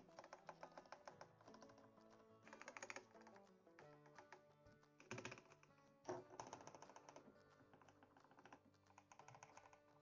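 Typing on a mechanical keyboard with fully lubed Kailh optical Box Black-style switches and O-rings. The keystrokes come in quick runs with short pauses, with no spring ping. Background music plays underneath.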